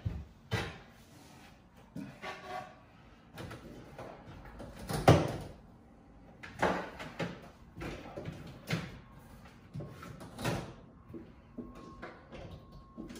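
Irregular knocks and clatters, with rustling between, from hands working on the plastic waste pipework and hose inside a kitchen-sink cabinet. The loudest knock comes about five seconds in.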